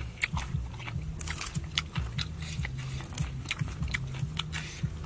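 Close, crisp crunches and snaps of fresh green vegetable stems being broken and bitten, several a second and irregular.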